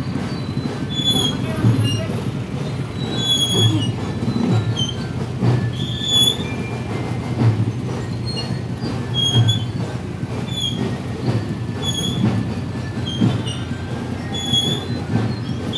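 Motorcycle engines idling and creeping along at walking pace, a low steady rumble, with short high-pitched squeals repeating about every second or two.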